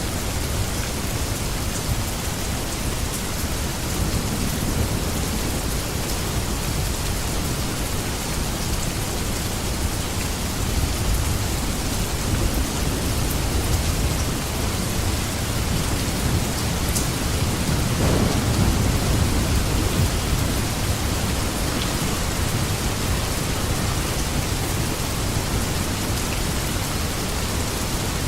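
Steady rain falling, a dense even hiss. A low rumble builds through the middle, swells loudest about two-thirds of the way through, then fades.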